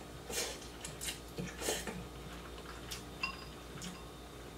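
Noodles being slurped and broth sipped from a ceramic bowl, a few short slurps in the first two seconds. A single light clink of chopsticks against a ceramic bowl a little after three seconds.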